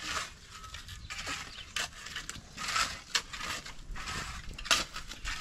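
Steel shovels scraping and striking into a pile of gravel and cement as concrete is mixed by hand, in short irregular strokes, the sharpest near the end.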